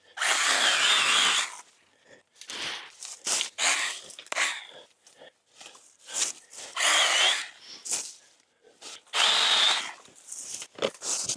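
Stihl battery-powered mini pruning chainsaw cutting through brush in repeated short bursts, its motor starting and stopping every second or so between cuts.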